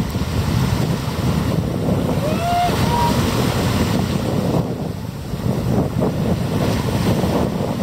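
Wind buffeting the microphone over the steady wash of surf on a beach. A couple of brief faint high calls come through about two and a half seconds in.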